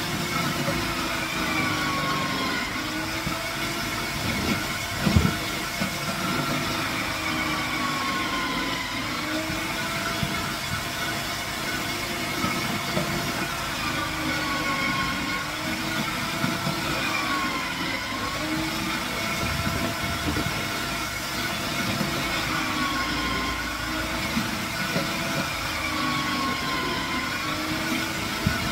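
Electric food processor grating pumpkin: the motor runs steadily, its pitch dipping and recovering every few seconds as pieces are pressed down the feed tube onto the grating disc. One sharp knock about five seconds in.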